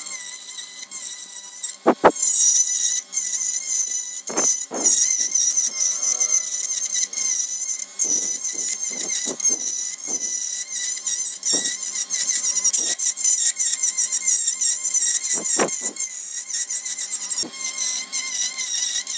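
Wood lathe turning while a narrow parting tool cuts into a square-cornered block of the spinning workpiece: a steady high-pitched scraping whine that wavers in pitch, with a few heavier strokes as the tool bites into the corners.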